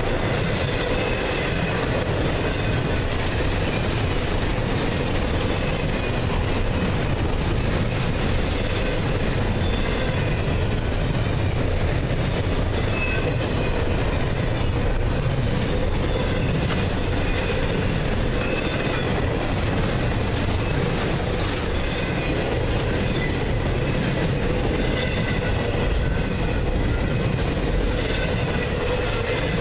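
Loaded double-stack intermodal well cars rolling past close by: a steady rumble of steel wheels on rail, with faint high wheel squeals coming and going.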